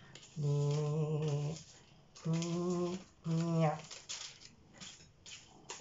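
A man humming three held notes at a steady pitch, the first about a second long, the next two shorter, followed by faint clicks and rustling from objects being handled.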